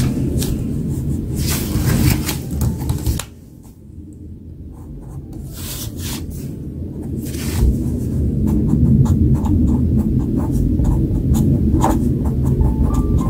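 Pen scratching on paper in many short strokes, over background music that drops away suddenly about three seconds in and builds back up.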